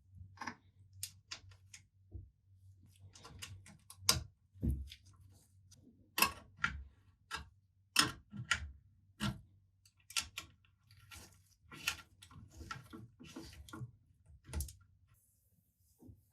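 Irregular sharp clicks and light taps of small metal parts and tools being handled during the saber's restoration, over a faint steady low hum.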